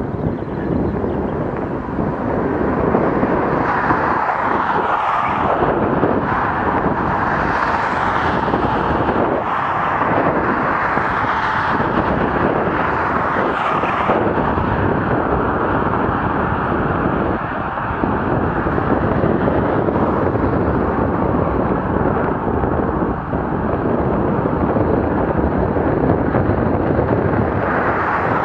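Steady rushing road noise of a bicycle commute: wind on the microphone and passing car traffic, brighter and louder between about 4 and 14 seconds in.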